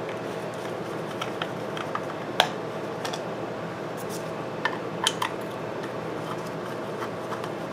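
A few light metal clinks and taps of hand tools as a nut driver is picked out of a pile of tools and fitted onto a screw in a small engine's housing, the loudest about two and a half seconds in. A steady hum runs underneath.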